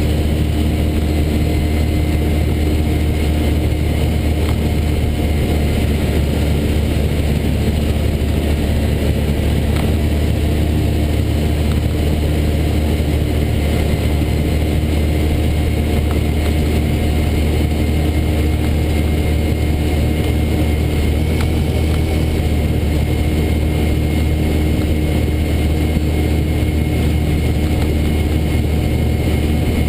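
Vehicle driving across a dirt dry lake bed: a steady low engine drone with rumbling road noise, holding an even pace throughout.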